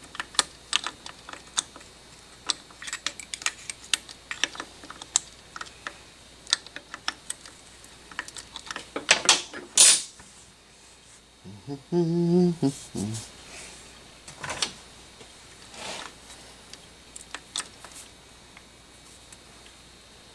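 Hand tools clicking and clinking against metal on an engine: irregular sharp taps from wrenches and bolts, thinning out after about ten seconds. A brief low hum comes about twelve seconds in.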